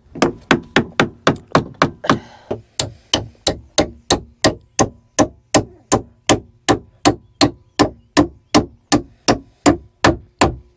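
Hammer driving copper nails into the timbers of a wooden boat's beam shelf, with rapid, evenly spaced blows about five a second.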